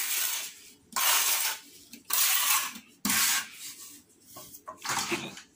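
A broad putty knife scraped repeatedly against the rim of a plastic bucket, wiping off wet white ceiling mix, in a series of rasping strokes about one a second.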